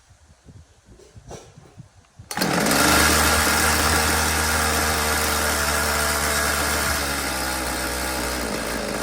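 Ryobi RCS4246B two-stroke chainsaw engine starting suddenly about two seconds in and running steadily, easing down a little near 7 seconds. The idle speed is being set on a saw that had been cutting out because its idle was too low.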